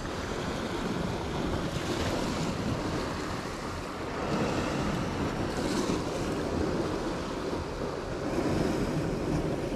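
Sea surf washing against a rocky shoreline, swelling louder twice, with wind rumbling on the microphone.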